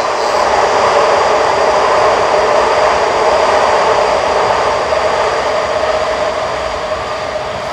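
A loud vehicle going by: a steady rushing drone with a hum in it, building toward the middle and easing off toward the end.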